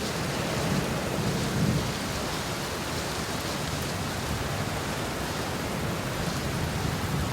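Thunderstorm: steady heavy rain hiss with low rolling thunder, one rumble swelling about a second and a half in.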